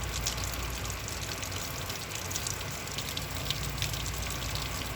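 Heavy rain pouring down steadily, a dense hiss of splashing drops.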